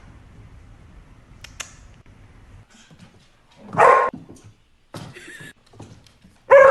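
Dog barking: a few short separate barks, the loudest about four seconds in and another at the very end, each as the dog lands from a jump.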